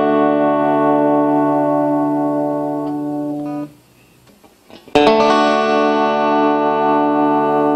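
Solid-body electric guitar played through a Fender Acoustasonic DSP Junior amplifier. A strummed chord rings on and is damped a little under four seconds in. After about a second of near quiet, a second chord is strummed and left ringing.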